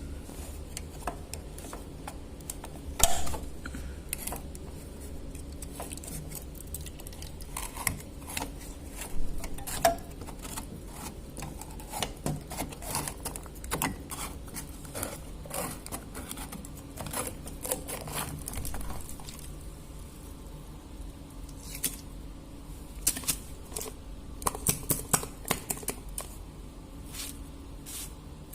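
Irregular clicks, knocks and scrapes of hands working on an Electrolux washing machine's parts, with a few louder knocks about three seconds in and near the end, over a low steady hum.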